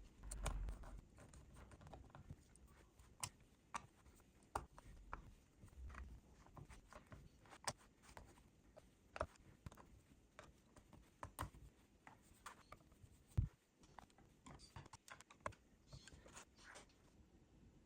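Light, irregular clicks and taps of hand tools and small parts being handled on a workbench while an amplifier main board is taken apart. There is a low thump at the start and a sharper knock about 13 seconds in.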